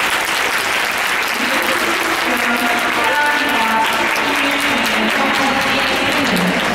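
Audience applauding steadily, at the end of a figure skater's short-program run-through.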